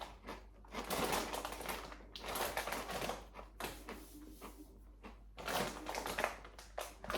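Crunching of Takis rolled tortilla chips being chewed close to the microphone: irregular clusters of crisp crackles.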